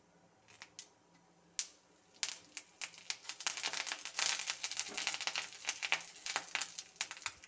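Curry leaves spluttering in hot oil in a kadai over a mustard-seed tempering: a few scattered pops, then about two seconds in a dense, fast crackling that runs for several seconds.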